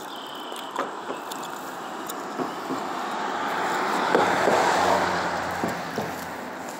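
A road vehicle passing by: a swell of tyre and engine noise that builds to a peak about four to five seconds in and then fades away.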